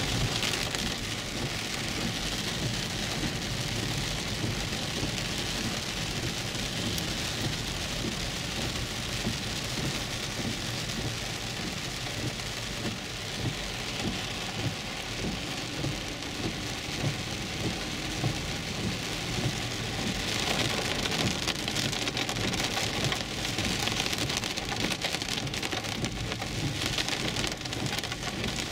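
Heavy rain pelting the roof and windshield of a car, heard from inside the cabin as it drives slowly, with the windshield wipers sweeping. A steady, even rush of rain with small regular peaks.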